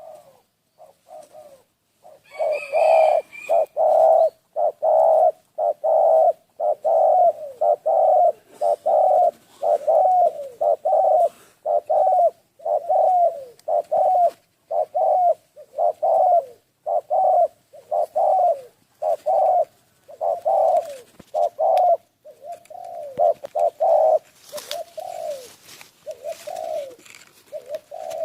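A bird calling over and over, a short arched note about once a second, starting about two seconds in.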